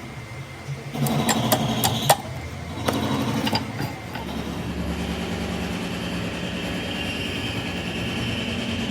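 A few sharp metallic knocks, then a machine running steadily with a high whine.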